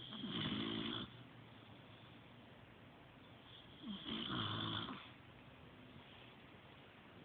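A sleeping pet snoring: two long snores, each about a second, one at the start and another about four seconds in.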